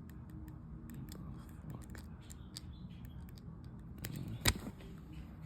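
Small clicks and scrapes of a tool prying an iPhone's glued screen away from its frame, with one sharper, louder click about four and a half seconds in.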